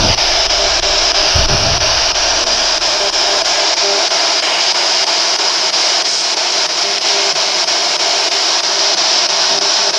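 Handheld radio used as a spirit box, sweeping rapidly through stations: a loud, steady hiss of static with a few faint, short blips chopping in and out. A soft low bump comes about a second and a half in.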